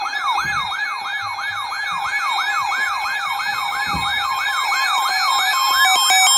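Electronic siren-style emergency alert tone: a rapid rising-and-falling yelp that repeats about three times a second over a steady tone. Near the end a second steady, stepping beep tone joins in and the sound is at its loudest.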